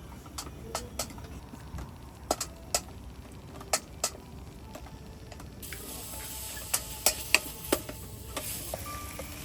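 Food sizzling in a pan, with utensils clicking and tapping against the cookware at irregular moments; the sizzle gets louder about halfway through.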